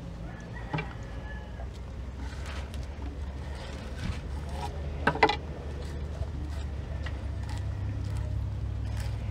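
A steady low mechanical hum, with a brief sharp sound just after five seconds in and a smaller one near the start.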